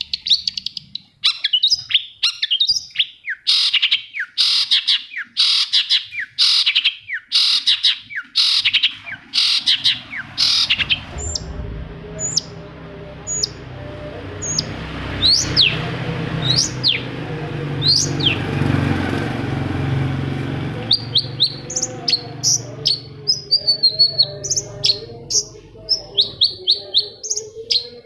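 Long-tailed shrike (cendet) singing: a rapid run of harsh, repeated chattering notes, then a stretch of sharp, falling whistled notes over a low background rumble from about 11 s to 21 s, and fast chattering again near the end.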